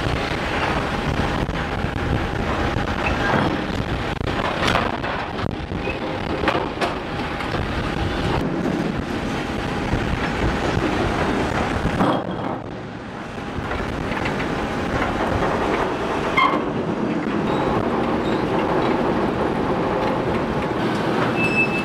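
Continuous mechanical rumble of engines, with a faint steady whine and scattered short knocks and clanks. The low rumble drops away briefly a little past halfway, then comes back.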